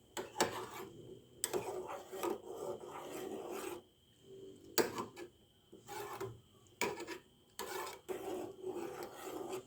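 Irregular scraping and rubbing strokes at the saucepan of boiling kadha, each up to about a second long, with a few sharp clicks between them.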